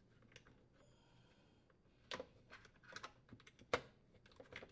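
Faint plastic clicks and taps from a dishwasher's plastic lower wash arm support knocking against the sump and manifold as it is fitted. The clicks come irregularly from about two seconds in, and the sharpest is near the end.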